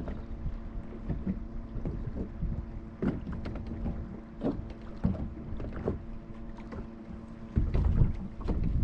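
Wind-driven chop slapping against a bass boat's hull at irregular intervals, over a steady low hum. A louder rush of wind and water comes near the end.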